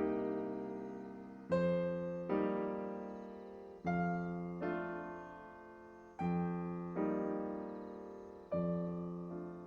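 Background music: slow, gentle piano chords, each struck and left to fade, a new chord every second or so.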